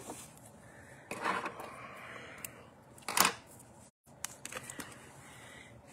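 Quiet handling of a quilting ruler and fabric on the sewing-machine bed: a soft rustle about a second in, a short swish about three seconds in, and a few light clicks, with the machine not running.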